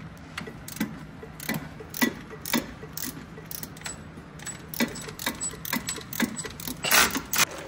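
A run of sharp metallic clicks, roughly two a second and unevenly spaced, some with a short ring: hand tools working on metal, over a steady low hum.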